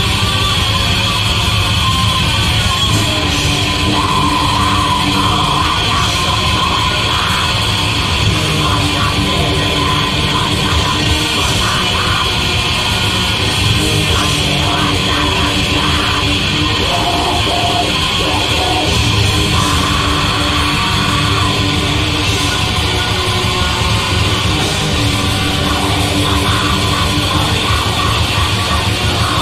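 Black metal song: distorted electric guitars and drums playing loud and dense.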